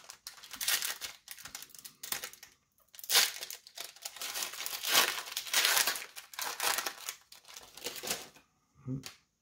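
Foil trading-card pack wrapper crinkling and tearing as a pack is ripped open, in a run of uneven rustling bursts.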